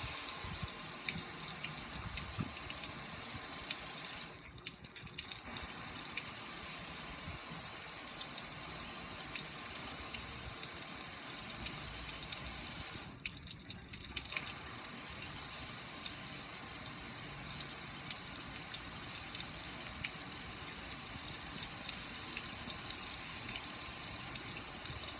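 Water pouring steadily over a gas grill's lid and control panel, splashing and dripping onto the ground below. The flow briefly thins twice, about four seconds in and again near the middle.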